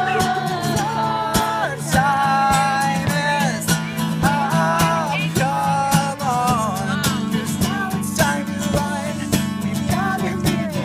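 Gibson acoustic guitar strummed in a steady rhythm while a man sings over it in long held notes.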